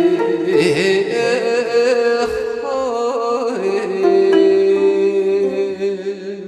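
Gayageum music with a voice singing, its pitch bending and wavering; from about halfway, longer held notes ring on.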